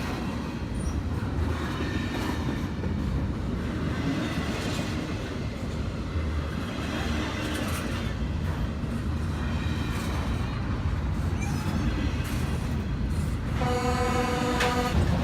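A train running past on the tracks with a steady low rumble. Near the end a train's air horn sounds one chord of several tones for about a second and a half.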